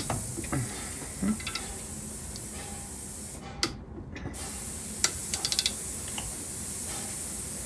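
A ratchet wrench clicking in a quick run of sharp clicks about five seconds in, with a few fainter clicks earlier, as a connecting-rod nut is run down and torqued, over a steady hiss.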